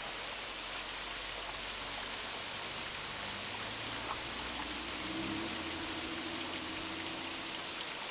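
Waterfall splashing: a steady, hissing rush of falling water.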